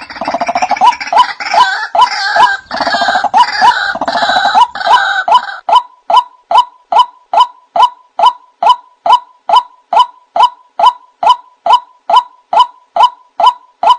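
White-breasted waterhen (wak-wak bird) calling. For about the first six seconds a rough, rattling chorus runs over repeated short 'kwak' notes. After that the 'kwak' notes go on alone, evenly repeated about two and a half times a second.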